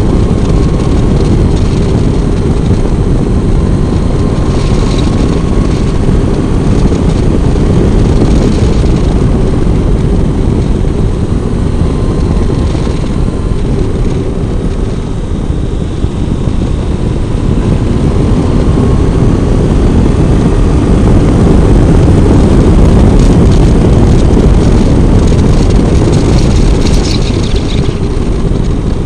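Triumph Tiger 800's three-cylinder engine running while riding, its note rising and falling gently with the throttle, half buried under heavy wind rush on the microphone.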